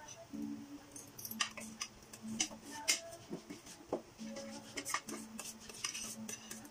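Spoons and forks clinking and scraping on dinner plates during a meal, in frequent light, irregular clicks.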